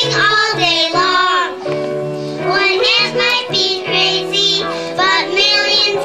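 A young child singing a song into a microphone over instrumental accompaniment.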